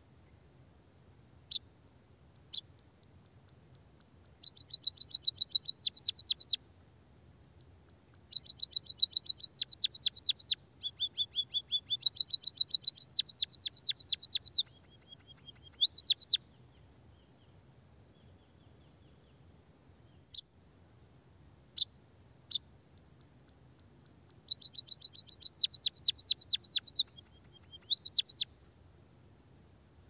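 White-headed munia singing: a few single chirps, then bouts of rapid 'kikikikik' trills made of quick down-slurred notes, some lasting several seconds, with short pauses between them.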